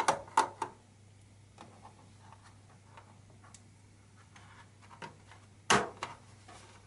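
Small screwdriver and hand clicking against the screws and plastic bottom cover of a Dell Vostro 3560 laptop. A few sharp clicks come at the start, soft scattered ticks follow, then a louder plastic clack about six seconds in as the cover is pressed and worked loose.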